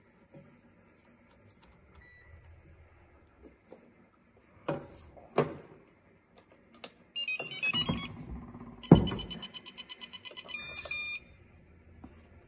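Electronic beeping from the RC model's electronics: a short stepping electronic tune, then a quick run of beeps and a held tone that cuts off suddenly. A few clicks and one loud thump come in between, the thump being the loudest sound.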